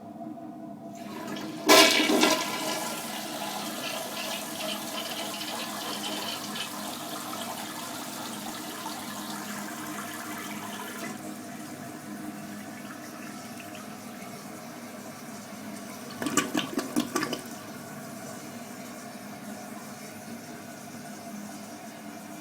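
A 1975 Briggs Model 102 tank toilet is flushed: a sudden loud rush about two seconds in, then water runs steadily and thins out. Around sixteen seconds in there is a short, stuttering burst, and a quieter steady water noise follows. The flush is a slow, 'lazy' one, which the uploader puts down to the big bowl and the near-S-shaped rear trapway.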